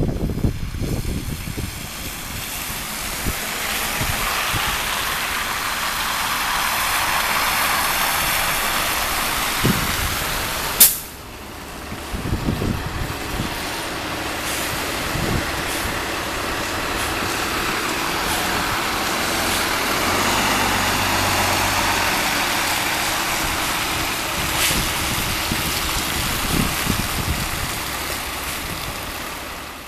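Nova Bus LFS city bus running past and pulling away on wet, slushy pavement: engine and tyre noise swelling and easing, with air-brake sounds. One sharp click about eleven seconds in.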